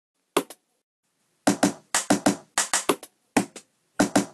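Beatboxing: sharp mouth-made drum hits, a single pair near the start and then from about a second and a half in a quick rhythm of hits, often in pairs.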